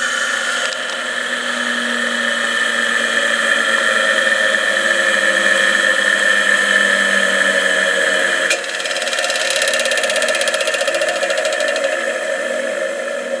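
Unbelted 1/4 HP, 1720 RPM induction motor of a Delta 8-inch drill press, with its step pulley, coasting down after being switched off. About eight and a half seconds in there is a sharp click: the centrifugal starting switch engaging as the motor slows.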